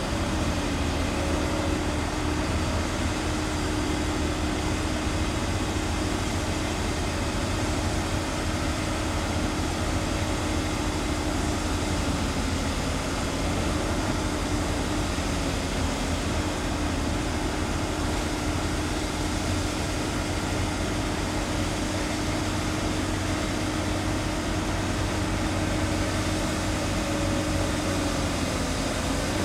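Diesel engine of a heavy tracked excavator running steadily at working revs: a constant low drone with a steady hum that sags slightly in pitch about halfway through.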